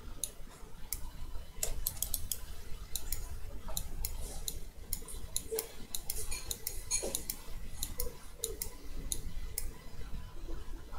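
Light, irregular clicking of a computer mouse and keyboard, several sharp clicks a second at uneven spacing, over a faint low hum.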